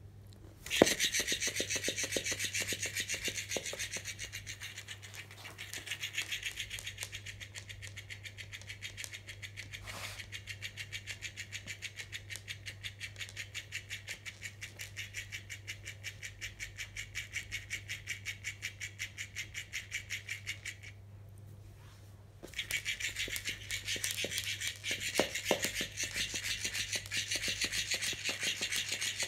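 Electric flopping-fish cat toy switching on about a second in, its motor buzzing in a rapid, even pulsing as the tail flaps. It stops for about a second and a half near the end, then starts again.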